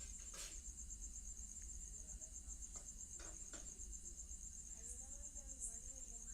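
Steady high-pitched pulsing chirr of crickets, with a few faint clicks.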